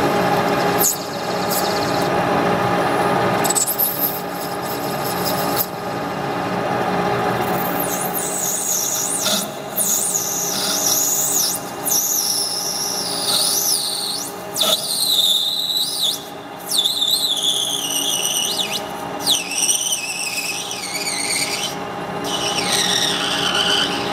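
Lathe turning a clear plastic rod with a single-point tool: the steady hum of the running spindle, and from about eight seconds in a high, wavering squeal from the tool on the plastic that comes and goes in pitch.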